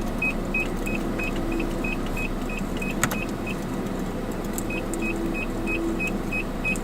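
Inside a moving car: steady cabin road noise with a car's short electronic ticks, about three a second. The ticks pause for about a second midway and then resume.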